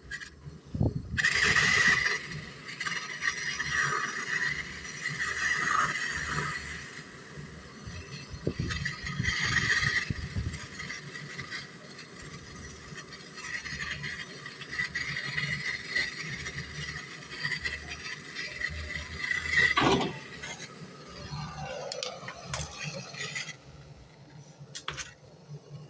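Hand scraping and rubbing on a refrigerator compressor's tube, in irregular strokes, with a sharp click and a short falling squeal near the end.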